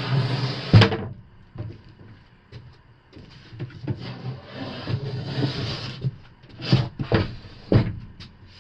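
Wooden cabinet boxes being shifted about, scraping and knocking: a scrape with a sharp knock about a second in, a longer scrape in the middle, and two more knocks near the end.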